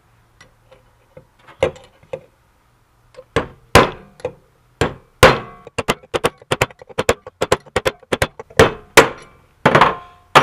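Hammer striking a punch to drive the old mechanical seal out of a Honda dewatering pump's cast aluminium housing: a few light taps, then from about three seconds in a run of sharp metal strikes, about three a second.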